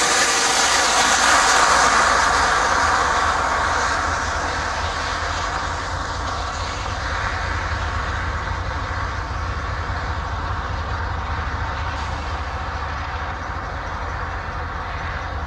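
Union Pacific diesel locomotives running slowly on approach: a steady low engine rumble with a faint drone above it, loudest in the first couple of seconds, then easing off a little.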